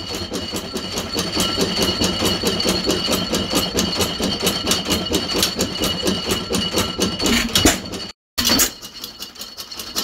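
1915 Stover 6 HP single-cylinder stationary engine running, with a rapid, steady clicking from its Fairbanks Morse magneto conversion. The sound cuts off abruptly about eight seconds in and gives way to a quieter stretch.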